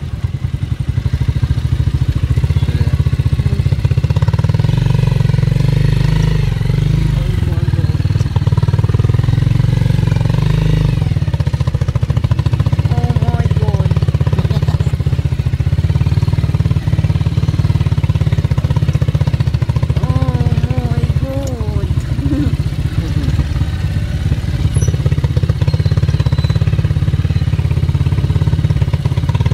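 Motorcycle engine of a Philippine tricycle (motorcycle with sidecar) running steadily at low speed on a rough dirt track, heard from on board. Its low engine note dominates throughout, and faint voices come through in the middle.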